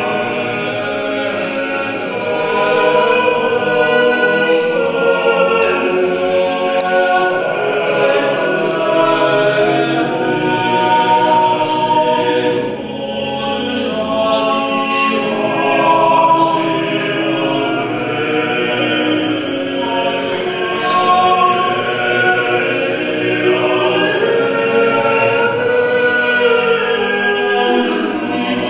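Small male vocal ensemble singing sacred polyphony a cappella, several voices holding long overlapping notes.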